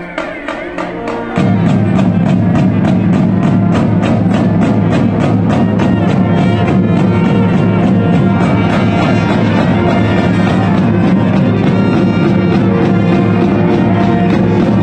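Marching band playing live: brass over a steady drum beat of about three strokes a second. About a second and a half in, the full brass section comes in loud, heavy in the low brass, and holds.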